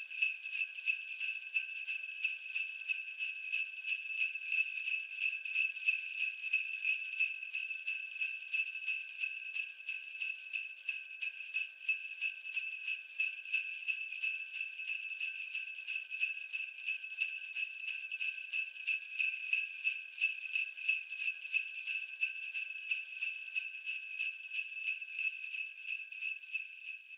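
Sleigh bells shaken in a steady, even rhythm at 90 beats a minute, a bright jingling ring on every stroke.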